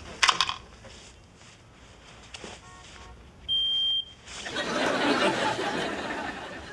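Two sharp knocks right at the start. A smoke detector then gives one short, high-pitched beep about halfway through, and a studio audience laughs after it.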